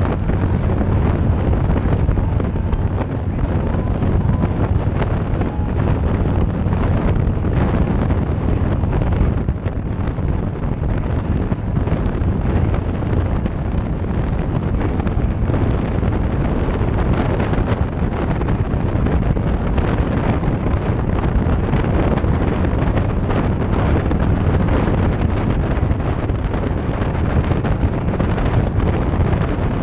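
Wind rushing over the microphone on top of the steady drone of a Harley-Davidson touring motorcycle's V-twin engine cruising at highway speed, with no change in throttle.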